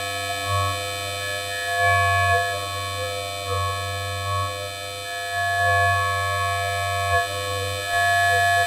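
Electronic drone from a Pure Data modular synth patch (multi-oscillator tone generator through a formant filter, ring modulation and echo-reverb): many steady held tones layered together, individual tones swelling and fading, over a constant low hum.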